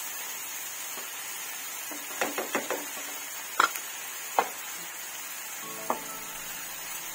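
A plastic spoon knocking against a nonstick wok as simmering tomatoes are mashed and stirred: a quick run of four knocks about two seconds in, then single knocks, over a soft steady sizzle.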